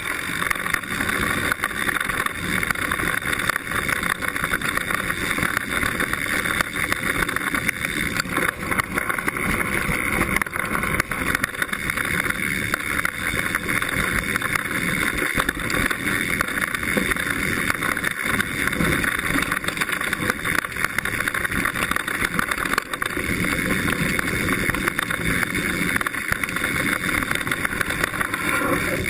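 Mountain bike descending a dirt forest trail at speed, picked up by a GoPro mounted on the seatpost: a steady rushing noise of tyres on dirt, full of rapid rattles and knocks from the bike jolting over the ground.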